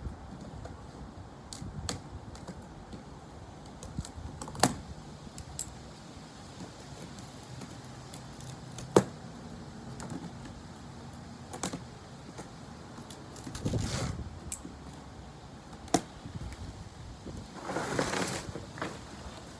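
Scattered sharp clicks and knocks as the packing straps of a treadmill's cardboard box are cut with scissors and the box is handled. Near the end comes a longer rustle of plastic wrap and cardboard as the wrapped frame is lifted out.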